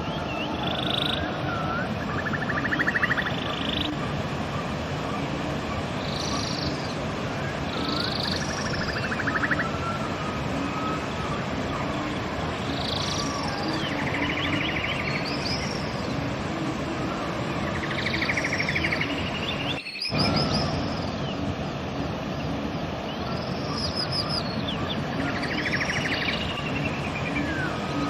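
Steady rushing of a river with songbirds singing over it in short chirped and trilled phrases every second or two. The sound drops out for a moment about two-thirds of the way through.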